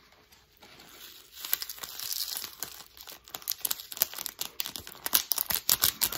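A small plastic seasoning packet of seaweed and sesame flakes crinkling as it is handled and shaken out over a noodle bowl. The crackling starts about a second in and turns into a dense run of sharp crackles in the second half.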